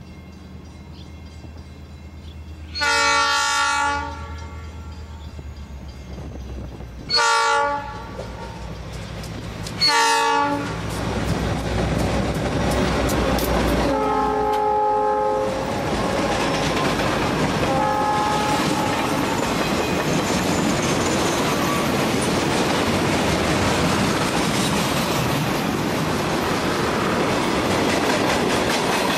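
Diesel freight locomotive horn: one long blast, then two short ones, then two more blasts on a lower-pitched horn. Under and after them, the locomotives' engines and a long string of freight cars rolling past with steady wheel clatter and rumble.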